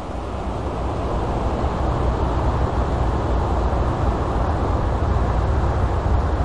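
A steady low rumbling noise that builds over the first couple of seconds and then holds.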